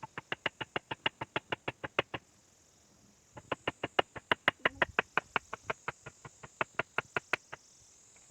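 Hammer striking hot iron on an anvil in two fast runs of blows, about eight a second, with a pause of about a second between them, as the iron is forged into a spear.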